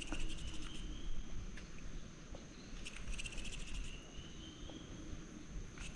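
Forest insects calling: a steady high drone, with two short, rapid trilling calls about three seconds apart, each rising slightly in pitch.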